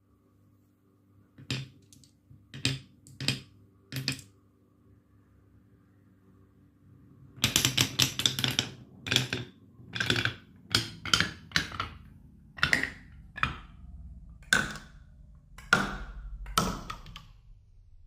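Marbles clacking down a HABA wooden marble run: four separate knocks in the first few seconds, then a quicker string of clacks from about seven seconds in, with a low rolling rumble under the last few.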